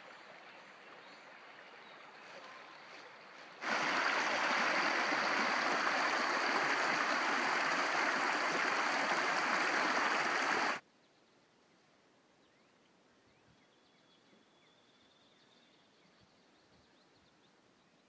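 Shallow rocky creek running over riffles, a loud steady rush of water for about seven seconds in the middle that starts and stops abruptly. Before it a softer run of water; after it quiet, with a few faint high chirps.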